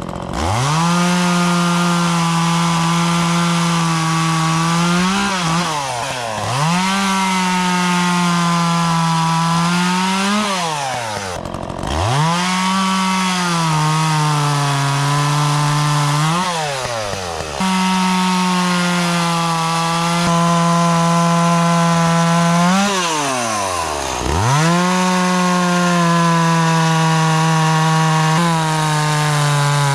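Two-stroke chainsaw running at full throttle cutting wood, its pitch sagging as the chain loads up in the cut. About four times the throttle is let off and the engine drops toward idle before revving straight back up.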